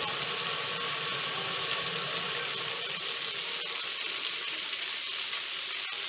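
Bacon sizzling in a frying pan: a steady hiss with scattered small pops, and one sharper pop near the end.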